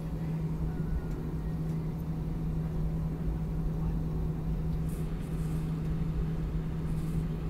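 Airbus A320-200 taxiing with its engines at idle, heard inside the cabin: a steady low rumble with a constant low hum.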